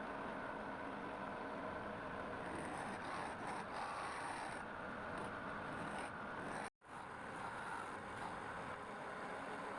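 Wood lathe running steadily, with a turning tool working the wood. The sound drops out for an instant about seven seconds in.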